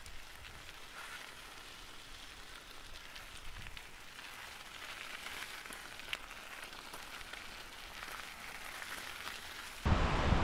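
Steady patter of rain falling, an even hiss with scattered drop ticks. Near the end it gives way abruptly to loud wind buffeting the microphone.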